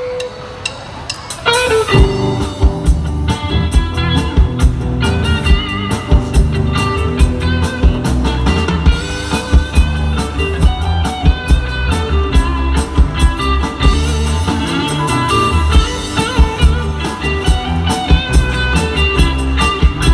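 Live rock band playing electric guitars, bass guitar and drum kit through a PA. The full band comes in loud about two seconds in, with a strong bass line and a steady drum beat under the guitars.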